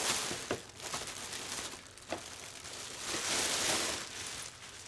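Clear plastic bag crinkling and rustling as a body shell is pulled out of it, loudest near the start and again about three seconds in, with a few light clicks.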